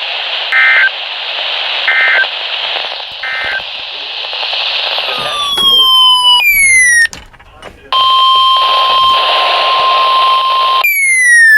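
NOAA Weather Radio receiver hiss, with three short bursts of data tones about a second and a half apart: the end-of-message code that closes the previous warning. Then come two falling sweeps and the weather radio's steady 1050 Hz alert tone, held for about three seconds, with another falling sweep near the end.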